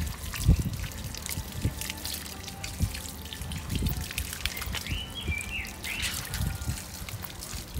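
A thin stream of running water trickling and splashing onto a soaped, wet dog and the concrete beneath it while the dog is washed, with scattered low thumps from handling. A brief high chirp sounds about five seconds in.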